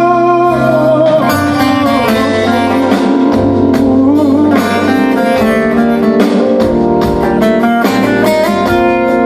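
Live band music led by guitar over sustained chords, with regular drum hits.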